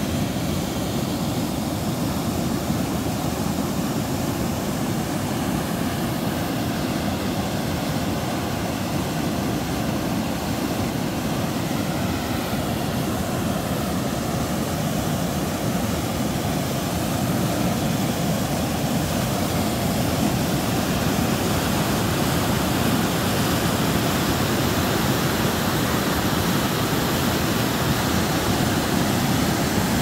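A river cascade's whitewater rushing over a rock slab in a steady, loud, deep rush, growing a little louder about halfway through.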